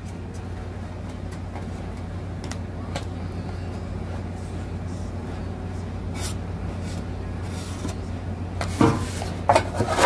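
A steady low hum runs throughout, with faint clicks of a marker and paper strip against a small steel cable tray section. Near the end come a few louder knocks and scrapes as the tray is shifted on the table.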